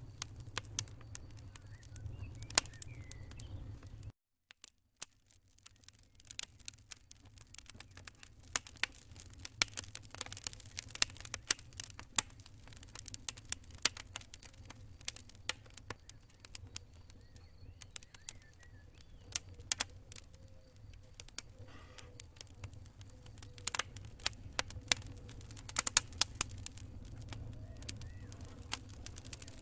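Fireplace fire crackling, with irregular sharp snaps and pops over a low steady rumble. The sound cuts out for about a second, about four seconds in, then resumes.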